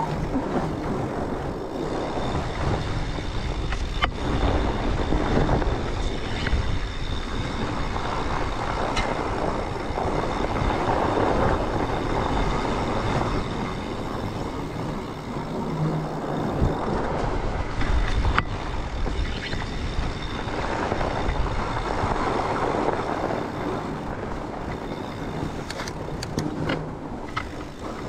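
Fat bike rolling along a snow trail: steady noise from the wide tyres on snow and wind on the microphone, a low rumbling hiss. A few sharp clicks stand out, the clearest about four seconds in and near eighteen seconds.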